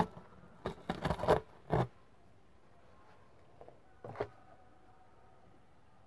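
Paper craft pieces being handled: a cluster of short crackling rustles in the first two seconds and one more about four seconds in.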